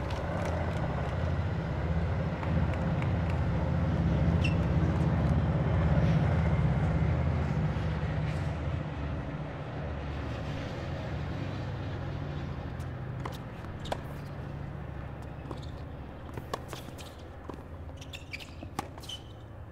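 Low engine rumble of a passing vehicle, building to its loudest about six seconds in and then slowly fading. Near the end, a few sharp knocks of a tennis ball struck by rackets.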